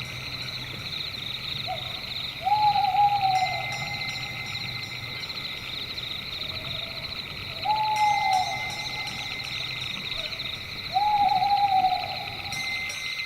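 Owl hooting three times, each a drawn-out hoot of about a second that sags in pitch at the end, most led in by a short soft note. A steady, high, rapidly pulsing chorus runs underneath.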